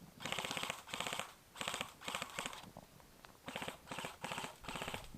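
Airsoft gun firing on full auto in short bursts, about eight quick rattling strings of shots with brief gaps between them.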